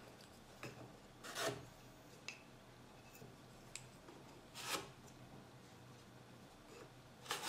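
Three short, soft rasping strokes a few seconds apart, with a few light taps in between: a small piece of gypsum board being scraped by hand to round off its edges.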